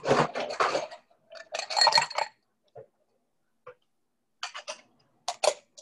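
Ice and a metal cocktail shaker clinking and rattling: two short runs of rapid rattles in the first two seconds or so, then a few separate sharp clinks near the end as the shaker is handled.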